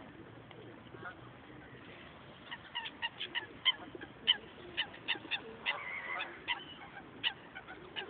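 Waterfowl calling: a quiet first couple of seconds, then a run of short, repeated calls, some in quick succession, going on to the end.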